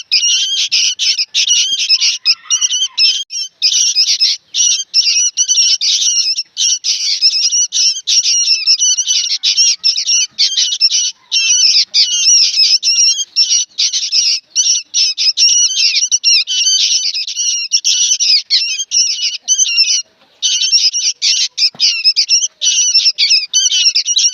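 Young sooty-headed bulbul (kutilang) giving shrill, rapid calls almost without pause, with only a few brief breaks.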